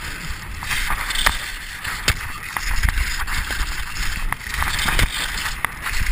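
Race skis running and carving on packed snow: a continuous scraping hiss from the edges and bases, with wind rumbling on the body-mounted camera's microphone. Frequent, irregular sharp clicks and knocks run through it.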